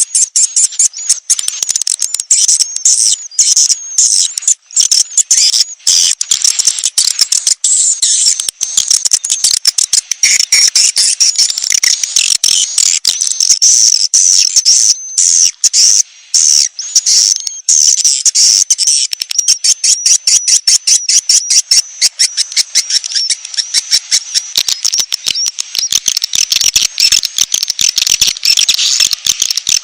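Bird-trapping lure recording of dense, rapid, high-pitched bird chirping and twittering, played to draw in young and wild birds.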